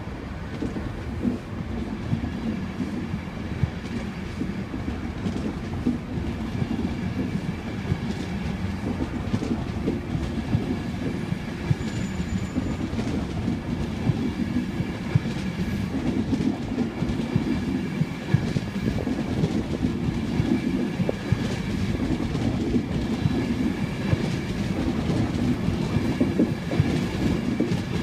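Class 91 electric locomotive and its coaches pulling out of a station. The wheels click over rail joints in a steady rumble that grows a little louder towards the end.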